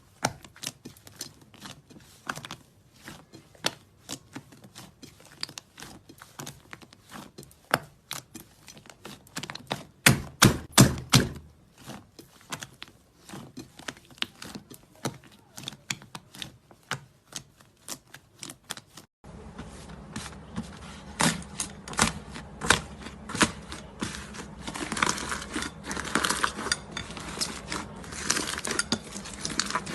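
Slime being squeezed and poked close to the microphone: a dense run of small clicks, pops and crackles, with a louder cluster about ten seconds in and a steady background hiss joining about two-thirds of the way through.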